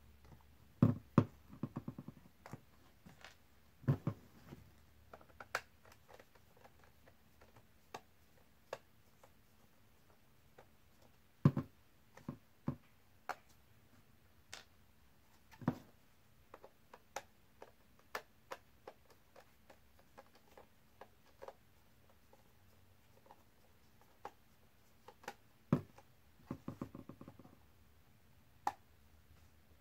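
Scattered clicks, taps and knocks of a screwdriver and the plastic housing and solar panel of a small LED light being handled and taken apart, with two short runs of rapid ticking, near the start and near the end.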